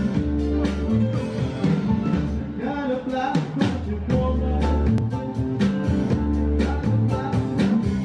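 Background music: an upbeat guitar-driven rock tune with a steady drum beat and a vocal line.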